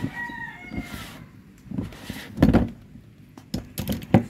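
A rooster crowing during the first second, followed by a series of sharp knocks in the second half.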